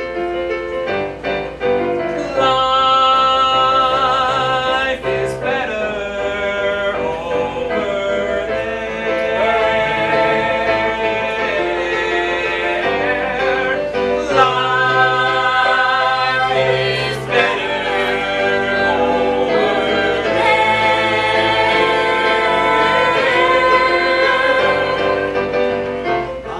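A song sung with vibrato over instrumental accompaniment with a stepped bass line, loud throughout.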